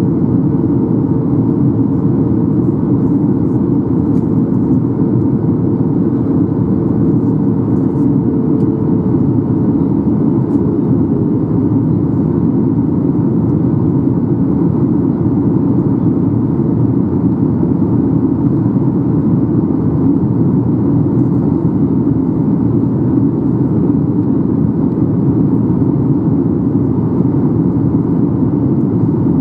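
Steady roar inside the cabin of a Boeing 737-800 on approach, from airflow and its CFM56-7B engines. A faint hum fades out about ten seconds in.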